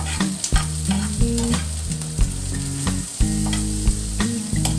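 Sliced red onions sizzling in hot oil in a nonstick frying pan, stirred with a metal slotted spoon that clicks and scrapes against the pan again and again.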